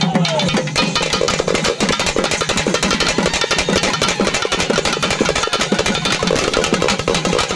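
Two-headed barrel drums beaten in a fast, unbroken stream of strokes, street-procession drumming.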